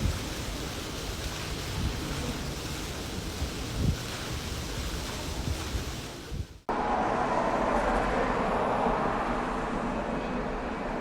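Storm noise of wind and heavy rain, with gusts buffeting the microphone. About six and a half seconds in it cuts abruptly to a different steady rushing noise.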